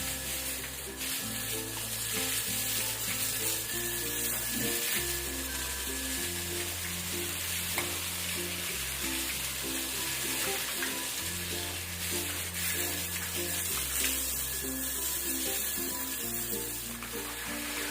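Background music with a slow, stepping bass line, over a constant hiss.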